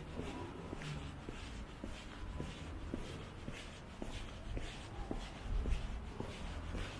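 Footsteps of a person walking at a steady pace, about two steps a second, over a low rumble.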